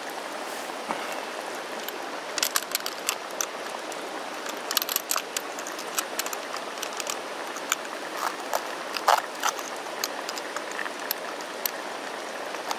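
Backpacking canister stove burner hissing steadily under a pot of pasta at a boil, with scattered small pops and clicks from the bubbling pasta.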